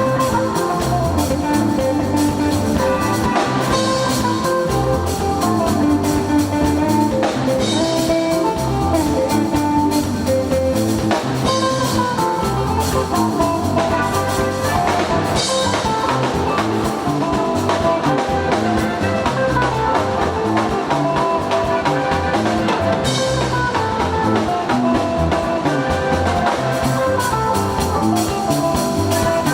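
Instrumental praise music played by a band, with guitar and drums keeping a steady beat.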